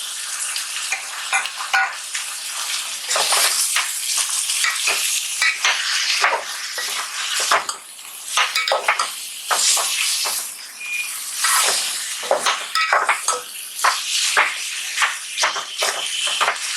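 Mutton and onion masala sizzling as it fries in a pot while a spoon stirs it, with a steady hiss and repeated scrapes and clinks of the spoon against the pan.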